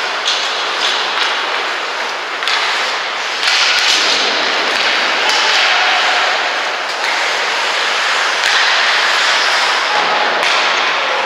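Ice hockey play: skate blades scraping and hissing across the ice, with a few sharp clacks of sticks and puck now and then.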